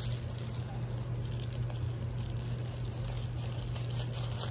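Packaging being opened by hand: soft, irregular crinkling and tearing of wrapping, over a steady low hum.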